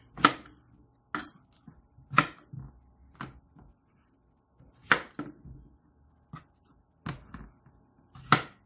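Chef's knife cutting through zucchini and striking a plastic cutting board: a string of sharp, irregular knocks with short pauses between them.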